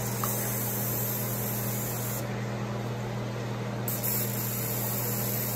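Aerosol cooking spray can hissing in two bursts: one of about two seconds, then after a short pause a second that starts a little past the middle and is still going at the end.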